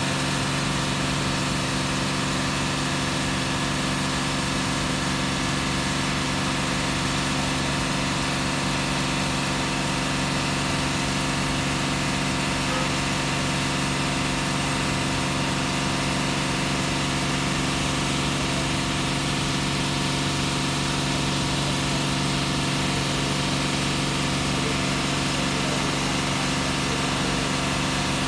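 Heavy truck's diesel engine idling steadily, with no change in engine speed.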